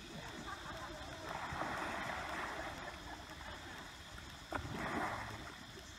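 Water splashing and sloshing as a bathing Asian elephant rolls and surfaces: two bursts of splashing, the second just after a sharp click near the end.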